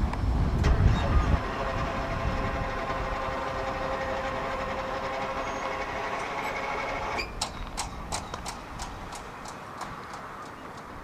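Freight train rolling past slowly: a low rumble, then a steady squeal from the cars. About seven seconds in, this gives way to a run of sharp wheel clicks over the rail joints, about three a second.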